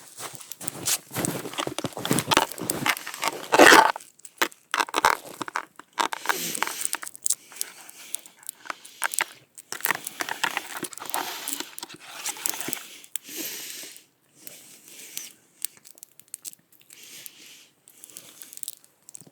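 Eating noises: close-up crinkling, rustling and scraping with many sharp clicks, in irregular spells that are loudest in the first few seconds and again around the middle.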